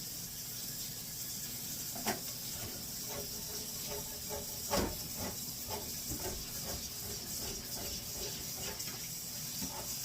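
Kitchen utensil knocking and scraping against cookware as scrambled eggs are served onto plates, with a sharp knock about five seconds in, over a steady hiss.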